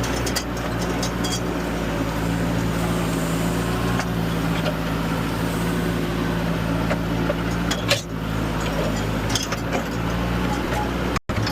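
Bobcat 863G skid steer's diesel engine running steadily under work, with a few sharp clanks and knocks. The sound cuts out for a split second near the end.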